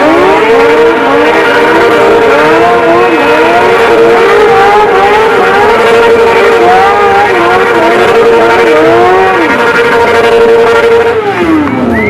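Motorcycle engines revving hard. One is held at high, steady revs and winds down about eleven seconds in, while another rises and falls over and over.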